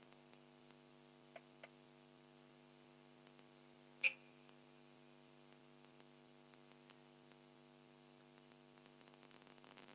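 Low steady electrical hum with a couple of faint clicks, then one sharper tap about four seconds in as a small 1/43 diecast Jeep Willys model is set down on a clear acrylic display turntable.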